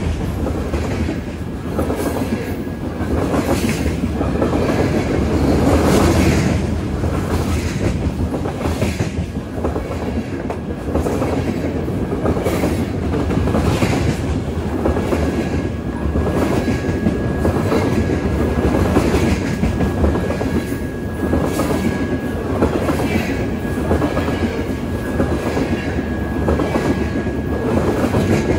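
Covered hopper cars of a freight train loaded with potash rolling past, a steady heavy rumble with repeated wheel clacks over the rail joints. A faint thin wheel squeal runs underneath, clearer in the second half.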